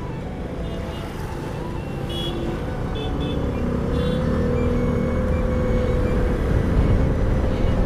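Vespa scooter riding through road traffic: engine and wind rumbling on the microphone, growing louder as the scooter gathers speed.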